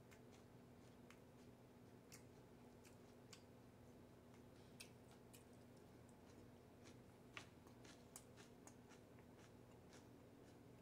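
Near silence: a faint steady low hum with scattered small clicks and ticks.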